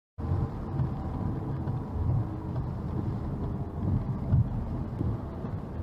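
Road noise inside a car driving on a wet highway: a steady low rumble of tyres and engine that starts abruptly a moment in.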